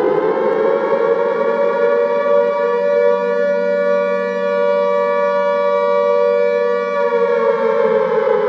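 Air-raid siren wailing: its pitch rises in the first second, holds steady, then starts to fall about seven seconds in.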